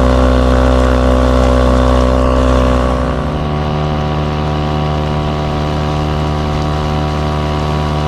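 Small outboard motor on a kayak running steadily, pushing the boat upstream. About three seconds in, its note shifts lower and it gets a little quieter as the throttle is eased.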